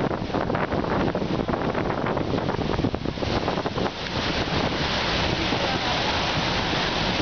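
Floodwater rushing and splashing against the side of a city bus as it pushes a bow wave through a flooded street, with wind buffeting the microphone. The hiss of the water gets brighter and louder about five seconds in.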